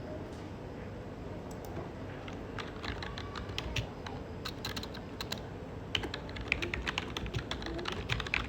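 Light, irregular clicking or tapping that starts about two seconds in and grows more frequent, over a steady low background noise.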